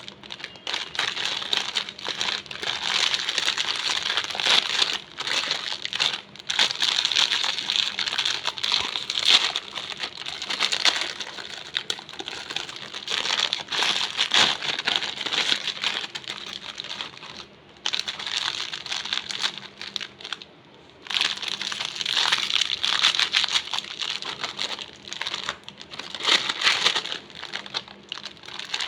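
Plastic snack wrapper, most likely the butter biscuit packet, crinkling and crackling as it is handled and opened, with two short lulls in the second half.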